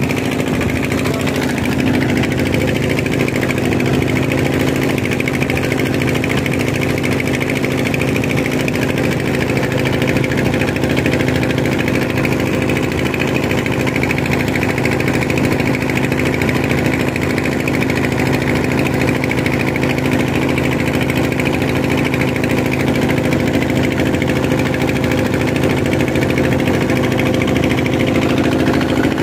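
Small wooden fishing boat's engine running steadily at an even pitch, with no change in speed.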